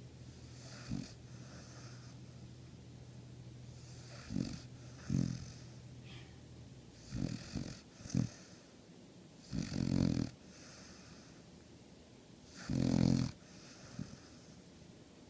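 Hound dog snoring in its sleep: about eight irregular snores and snorts, some short and some drawn out. The loudest two come about ten and thirteen seconds in.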